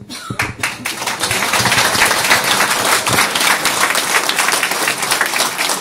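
Audience applauding: a full round of clapping from a seated crowd that swells up within the first half second and keeps on steadily.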